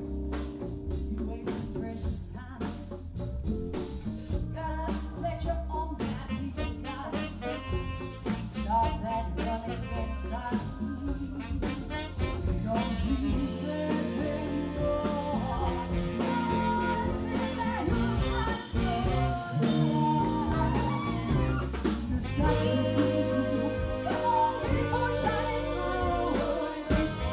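Live band playing, with electric bass, drum kit, electric guitar and keyboards. Women's lead and backing vocals sing over it in the second half, where the band plays fuller and a little louder.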